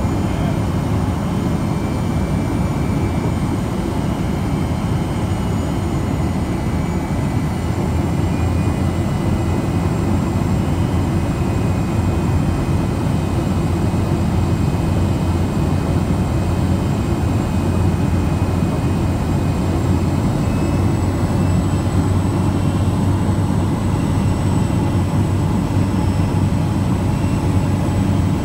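Steady engine and propeller drone of a floatplane, heard inside its cabin as it descends toward a water landing.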